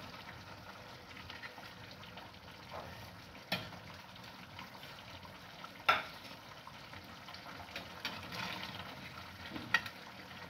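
Serving ladles and spoons clinking against pots and plates as food is dished out, a few sharp clinks with the loudest about six seconds in, over a steady hiss.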